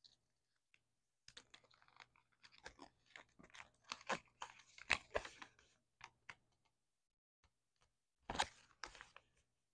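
A small folded paper instruction leaflet from a Kinder Joy egg being unfolded by hand: crisp crinkling and crackling, busiest from about a second in to about six seconds, with another short flurry near the end.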